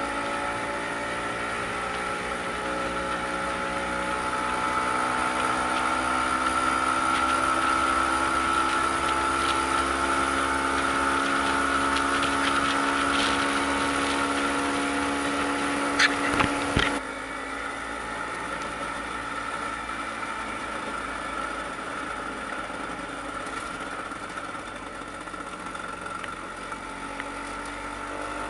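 Vespa PX 150's single-cylinder two-stroke engine running under way, its note rising and falling with road speed. It grows louder for a while, there are a couple of sharp clicks, and then it drops suddenly about two-thirds of the way through to a quieter, steadier note.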